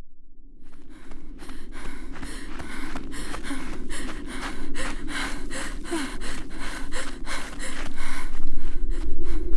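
A woman panting hard while running: quick, rhythmic gasping breaths, about two or three a second. A low rumble underneath grows louder toward the end.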